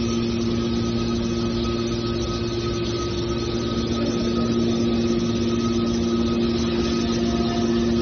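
Hydraulic power unit of a scrap metal car baler, its electric motor and pump running with a steady hum made of a few constant tones as it drives a ram cylinder.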